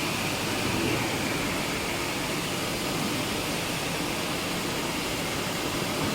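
Steady, even factory background noise with no cutting strokes or impacts.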